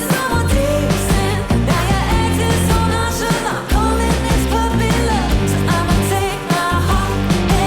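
Pop song with a steady beat, bass and a sung vocal melody.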